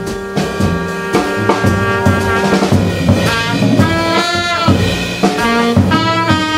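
Live jazz quartet: trumpet and alto saxophone playing a melody line together over double bass and a drum kit with cymbals.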